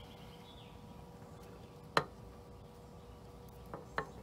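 Wire cutters snipping through bonsai tie-down wire: one sharp snip about halfway through, then two faint clicks near the end.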